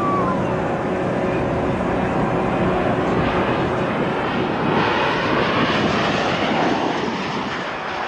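Twin piston engines and propellers of an Aero Commander making a low pass: a steady engine drone, then a rushing sound that builds about five seconds in and starts to fade near the end.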